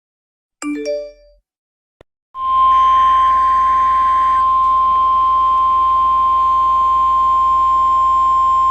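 A brief few-note chime, then about two seconds in a steady single-pitch alert tone starts and holds, over radio hiss and a low hum. It is the NOAA Weather Radio warning alarm tone that comes before a severe thunderstorm watch message.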